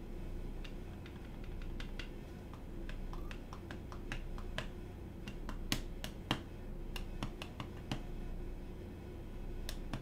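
Scattered, irregular light clicks and taps of plastic keyboard parts, with a couple of sharper clicks around the middle, over a steady low hum.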